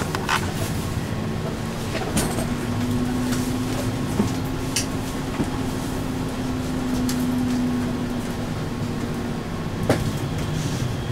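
Ride inside an electric trolleybus: a steady hum from the electric drive sets in about two seconds in and fades near the end, over road rumble. A few sharp knocks and rattles come from the body.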